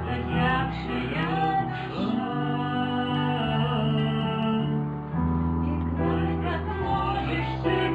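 Music: acoustic guitar with a singing voice.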